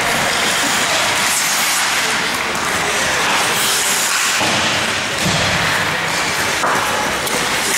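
Ice hockey arena sound from the stands: a steady wash of rink noise, skates on ice and sticks on the puck, with a few knocks and some crowd voices.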